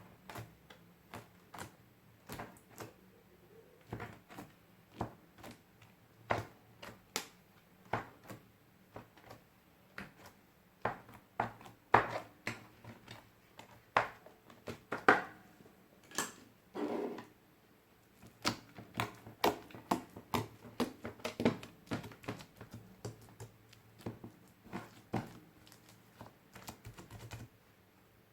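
Glitter slime with beads being pressed and stretched by hand, giving irregular sharp clicks and pops, at times several a second, which stop near the end.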